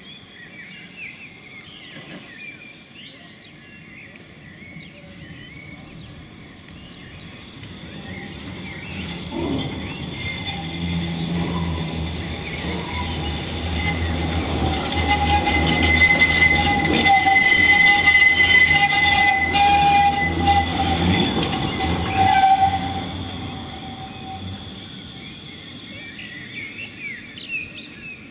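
Electric street tram approaching, passing close and moving away. Its rumble and hum build up over several seconds, with a steady high wheel squeal while it is closest, then fade.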